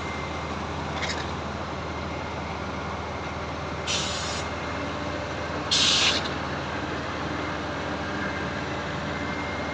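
Diesel engine of a truck-mounted hydraulic concrete pump running steadily during a concrete pour. Three short bursts of hiss cut through it, the loudest about six seconds in.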